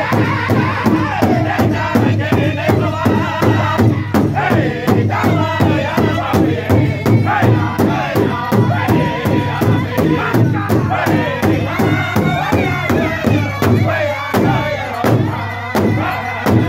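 Powwow drum group singing a men's traditional song: several drummers strike one large bass drum together in a steady beat of about three strokes a second, under many voices singing in unison.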